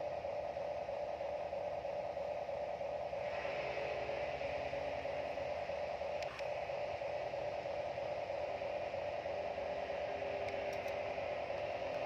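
A steady hiss with a constant mid-pitched hum, unchanging throughout, and a faint click about six seconds in.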